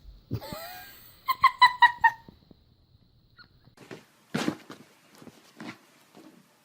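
An animal's calls: a short gliding cry, then a quick run of about six short high-pitched calls, followed a couple of seconds later by several rougher, breathier sounds.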